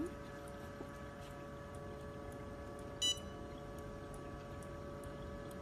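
Small jewelry laser welding machine humming steadily, with several steady tones. About three seconds in there is one short electronic beep, its touchscreen answering a button press as the settings are changed.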